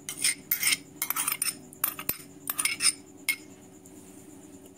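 Chopped coriander being tipped and scraped out of a small bowl onto shredded vegetables: a quick run of light scrapes and clinks against the bowl over the first three seconds or so, then quieter.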